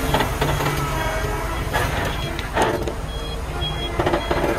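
Concrete mixer truck's diesel engine running as the truck reverses slowly, its tyres crunching over loose gravel.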